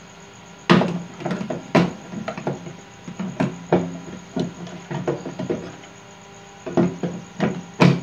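Irregular metal knocks and clicks as a replacement magnetron is set into a microwave oven's opened chassis, with several loud hits among smaller clatter.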